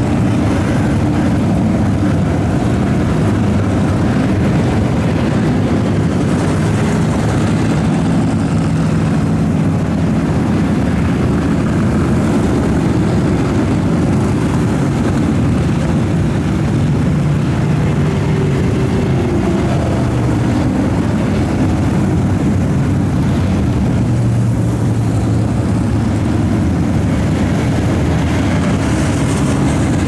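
Vehicle engines running in a steady, even drone whose pitch wanders slightly, with no sudden events.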